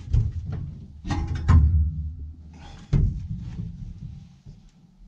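Steel auger flighting knocking and clunking against the steel grain tank of a John Deere S670 combine as the section is handled and lowered in, in several separate knocks, the loudest about a second and a half in and about three seconds in.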